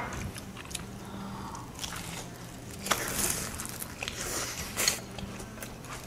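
Biting and chewing crisp, batter-fried eggplant: a run of crunches, loudest about three seconds and about five seconds in, over a steady low hum.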